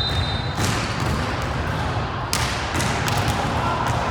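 Gym noise during a volleyball match. A shrill whistle blast ends about half a second in, and two sharp thuds of the ball being struck follow, about half a second and two and a quarter seconds in.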